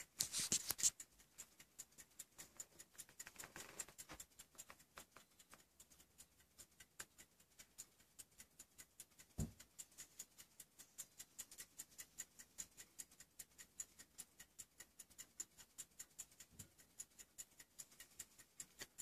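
Fast, light, even ticking from the carriage clock movements (platform escapements) of two antique French gilt bronze mantel clocks, several ticks a second. A brief rustle right at the start and a single soft thump about halfway through.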